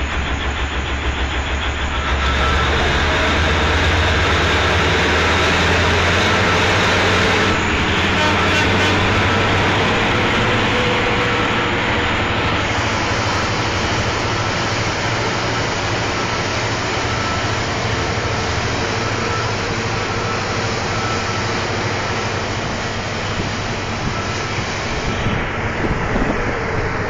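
Komatsu mining haul truck's large diesel engine running steadily as the truck moves, a deep hum with a faint steady whine over it. The hum is heaviest in the first half.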